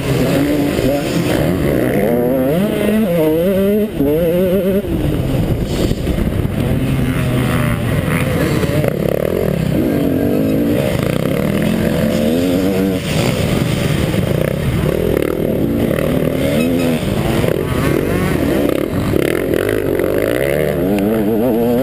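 KTM 150 XC two-stroke dirt bike engine being ridden hard, its pitch rising and falling again and again as the throttle is opened and closed and gears change.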